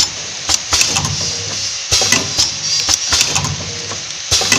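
Automatic powder sachet packing machine running: a steady hum and hiss with a cycle of sharp clacks and clicks that repeats about every two and a half seconds.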